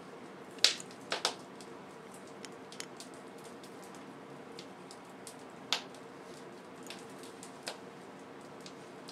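A few sharp clicks and light taps of metal being handled, with a loud one about a second in, a pair just after, and others near the middle and end, over a steady low hum.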